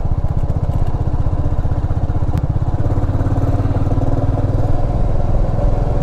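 Motorcycle engine running steadily while riding, a fast, even pulse from the engine.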